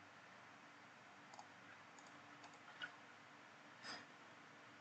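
Near silence with a few faint computer mouse clicks, spaced unevenly, and one slightly louder soft click near the end.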